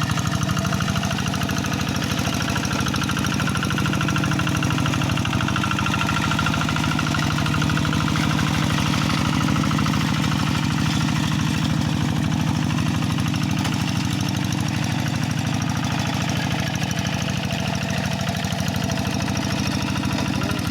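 Kubota RD85 DI single-cylinder diesel engine of a walking hand tractor, running steadily at an even speed while the tractor plows a wet rice paddy.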